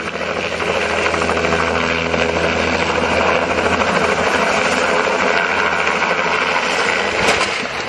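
Helicopter engine and main rotor running loud and steady at close range, with a fast rotor flutter. A single sharp crack comes near the end.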